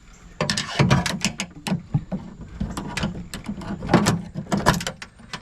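Rapid clicking, knocking and rattling of metal latch parts and rods inside a pickup truck's rear door as a hand works around in the door cavity, starting about half a second in.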